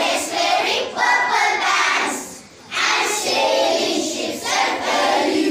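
A group of children's voices reciting a poem together in unison, in phrases, with a short pause between lines about two and a half seconds in.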